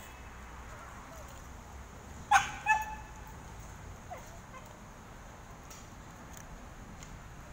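A dog giving two short barks close together, about two and a half seconds in, over a faint steady outdoor background.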